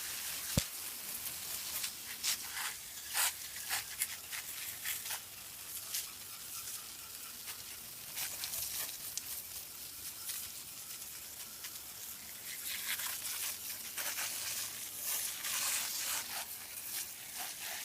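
Aerosol can of foaming evaporator coil cleaner spraying onto an air conditioner's coils: a steady hiss broken by many short spurts.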